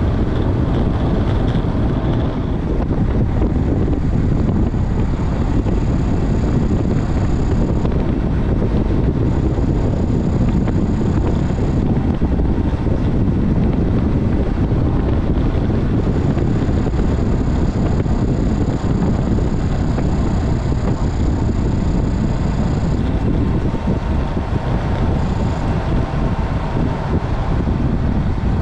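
Steady wind rush over the microphone of a road bike descending at about 35–40 mph. A faint high whine comes and goes in several stretches.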